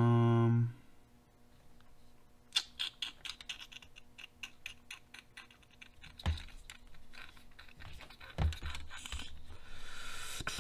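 A short hummed "hmm" at the start, then hard plastic RC truck parts clicking and rattling as they are handled and fitted together: a quick run of light clicks, two dull knocks against the workbench, and a short rustle near the end.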